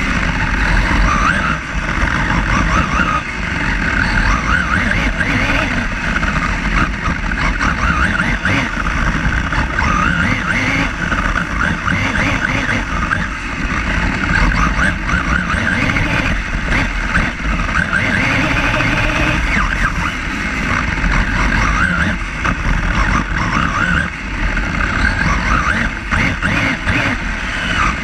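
On-board sound of a radio-controlled Team Durango car lapping a wet track: a whine from its motor and drivetrain that rises and falls every second or two with throttle, over a steady rumble and hiss of the tyres on wet tarmac.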